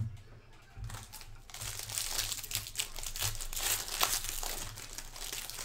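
Foil wrapper of a trading card pack crinkling as it is torn open and handled, starting about a second in.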